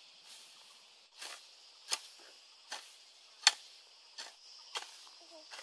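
Metal hoe blade striking and chopping into grassy soil, about seven dull strikes in a steady working rhythm, the loudest about halfway through.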